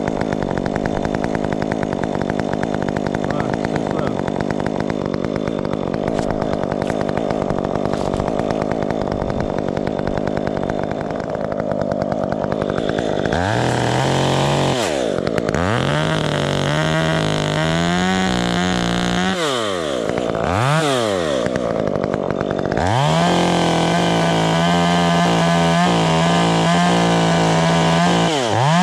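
Gas chainsaw running at high speed, steady through the first half. In the second half the throttle is let off and opened again several times, the engine note dropping and climbing back to full speed.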